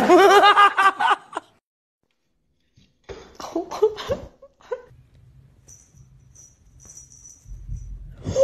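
A person laughing in a quick run of high-pitched bursts, followed a couple of seconds later by a few sharp knocks and scuffles.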